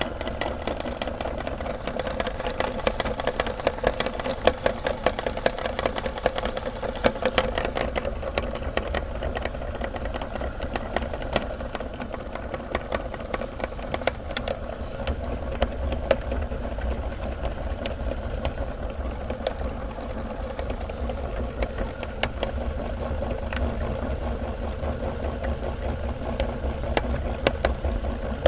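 Electric meat grinder running steadily while it grinds cookies, with many sharp crunching crackles over roughly the first half that thin out later.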